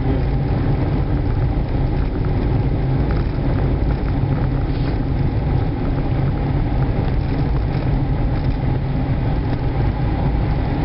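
Car running and its tyres rolling over interlocking concrete pavers, heard from inside the cabin while driving slowly: a steady low rumble.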